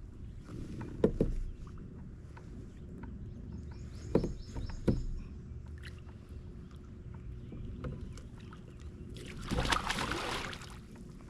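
Kayak on open water with a low steady rumble, a few sharp knocks about one, four and five seconds in, and a rush of noise lasting about a second near the end.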